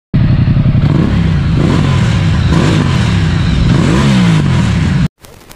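Ducati Multistrada 1200 S's L-twin engine revving through its stacked twin exhaust, the note rising and falling several times. It cuts off suddenly near the end.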